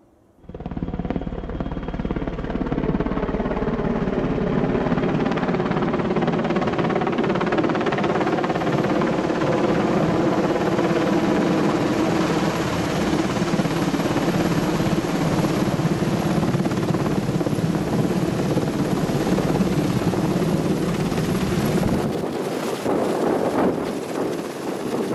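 Airbus NH90 TTH military helicopter flying low overhead with a water bucket slung beneath it: steady rotor and turbine noise with a whining tone, starting suddenly about half a second in. Near the end the low rumble drops away.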